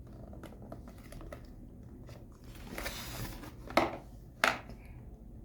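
A keyboard's retail box being turned and handled: soft rustling and scraping, with a longer rustle about three seconds in and two sharp taps soon after.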